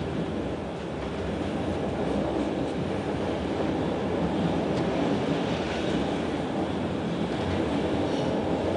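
Steady running noise of a passenger train in motion, heard from inside the carriage: a low rumble of wheels on rails.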